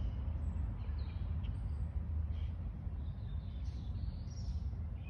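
Small birds chirping now and then in short high calls, over a steady low rumble.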